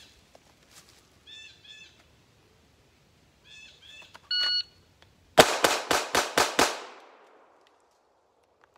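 A shot timer gives one short beep, and about a second later a handgun fires six rapid shots in just over a second, with an echo after them. This is a Bill Drill, drawing from the holster and shooting six, with about 2.3 seconds from beep to last shot. Short bird chirps come before the beep.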